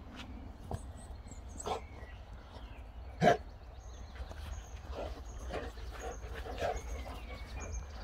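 Boxer dog barking once, short and loud, about three seconds in, with softer dog sounds after it.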